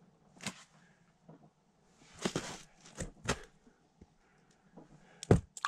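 Handling noises of gear being moved about: a few sharp clicks and knocks and a short scuffing rustle, the loudest knock near the end.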